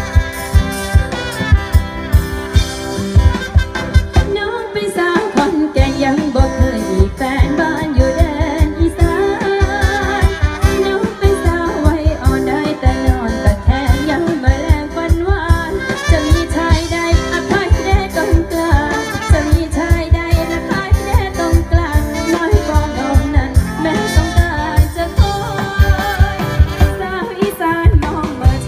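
Live band with a singer playing amplified Thai ramwong circle-dance music over loudspeakers, with a steady drum beat.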